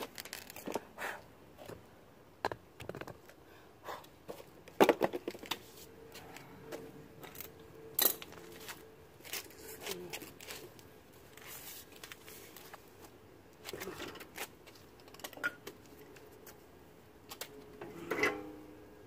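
Scattered metallic clinks and knocks of hand tools and car parts being handled during brake reassembly, with a louder clatter near the end as the alloy wheel is lifted onto the hub.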